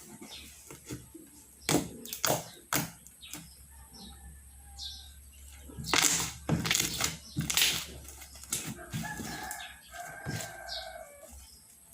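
Homemade slime being squished and pulled by hand, giving irregular sticky clicks and pops, busiest a little past the middle. A rooster crows in the background near the end.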